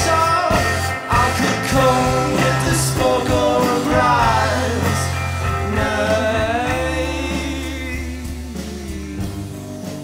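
Live rock band playing an instrumental passage: drums, electric guitar and a low sustained bass line under a high melody that slides and wavers in pitch. The band eases down in loudness over the second half.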